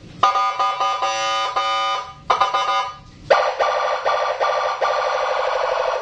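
Custom Senken police-escort (patwal) electronic siren being tested. It sounds in short bursts of stepped tones, pauses briefly twice, then runs a longer rapid warble from about three seconds in.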